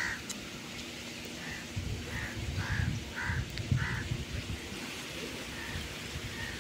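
Crows cawing: a string of short, faint calls every half second to second, with a low rumble underneath.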